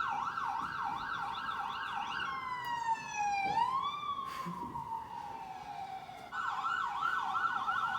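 Emergency vehicle siren, played back at full volume over speakers. It starts as a fast up-and-down yelp of about three sweeps a second. About two seconds in it changes to a slow wail that falls, rises once and falls away, and the fast yelp resumes about six seconds in.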